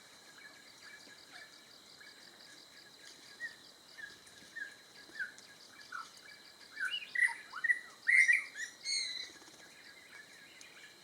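Birds calling: a run of short down-slurred whistled notes about every half second, building about two-thirds of the way through into a louder burst of overlapping chirps, over a steady faint high-pitched buzz.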